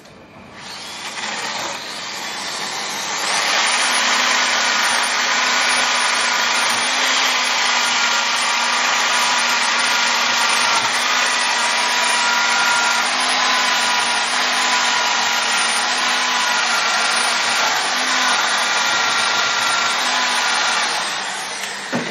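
Cordless power tool spinning a wire brush wheel against a rusty cast-iron brake caliper carrier, scouring off rust and scale where the brake pads sit. The motor whine and wire-on-metal rasp build up over the first few seconds, run steadily, then die away near the end.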